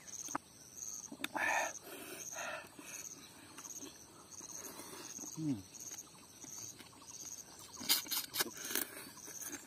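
Close-up mouth sounds of eating spicy crab curry: sucking and slurping curry and meat from pieces of crab shell, with crisp crunching clicks of shell near the end.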